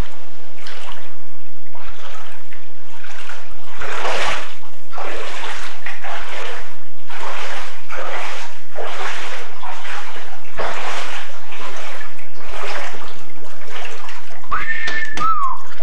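Someone wading through floodwater, with a splash and slosh at each stride about once a second. A short high whistling squeak comes near the end.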